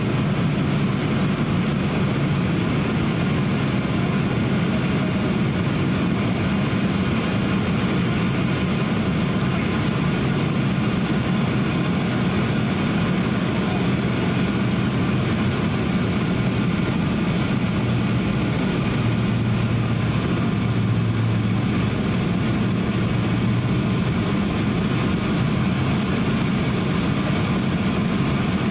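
Steady cabin noise inside a Boeing 767-300 airliner on descent, the drone of its turbofan engines and rushing airflow heard from a window seat beside the engine. A low hum grows stronger for a few seconds about two-thirds of the way through.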